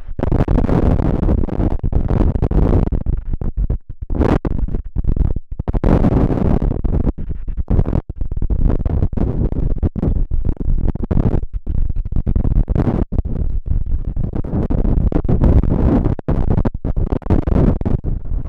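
Strong gusty wind buffeting the microphone: a loud, heavy rumble broken by brief, irregular dropouts.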